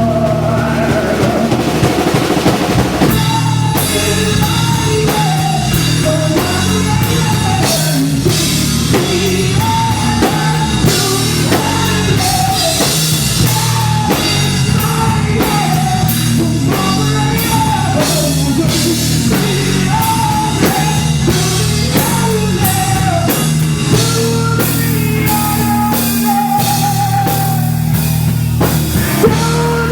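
Live rock band playing an instrumental passage: drum kit and bass with a lead melody bending over them. The full band comes in hard about three seconds in.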